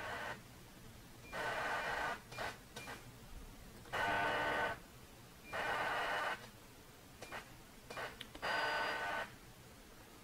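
ACARS aircraft data transmissions on the 131.725 MHz VHF channel, played back from a receiver recording: a string of short data bursts, each under a second, about four in all with a few shorter blips between them.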